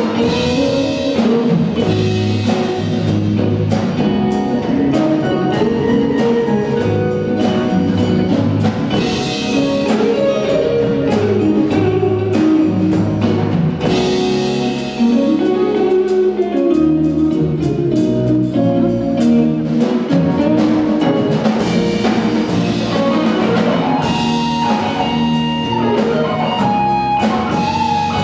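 Live band playing an instrumental number: electric guitar leading over a drum kit.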